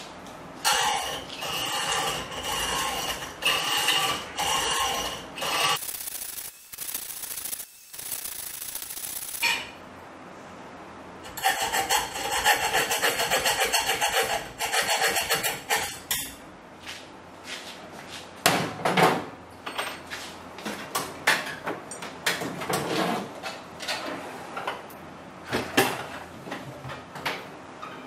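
Hand hacksaw cutting a workpiece held in a bench vise: runs of rapid back-and-forth rasping strokes broken by short pauses. In the second half the sawing gives way to scattered clicks and knocks and a few short bursts of strokes.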